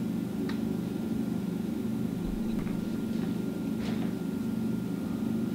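Room tone: a steady low mechanical hum, with two faint clicks, one about half a second in and one about four seconds in.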